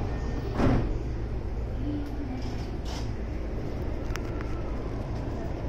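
Electric commuter train starting to pull out of a station, heard from inside the car: a short loud burst about half a second in, then a steady low rumble as it gets under way.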